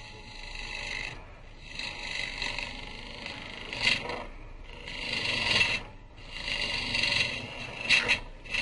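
A bowl gouge cutting green wood on a spinning Jet Mini lathe: a hissing scrape as shavings peel off. It comes in several passes with short breaks between them.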